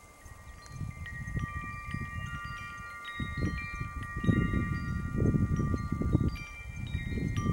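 Wind chimes ringing, many long tones at different pitches struck one after another and left to ring, over a low rumbling noise that grows louder about four seconds in.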